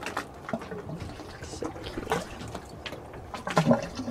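Baby vervet monkey mouthing and nibbling a person's ear close to the microphone: irregular wet smacking clicks. A brief louder, lower sound comes near the end.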